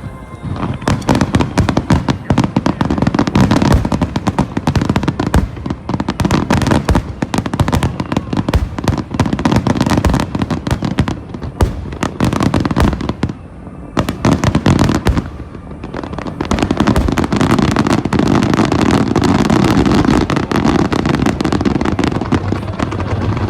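Fireworks finale barrage: a dense, unbroken run of shell bursts and crackling bangs over a low rumble. It eases for a moment about two-thirds of the way through, then builds again.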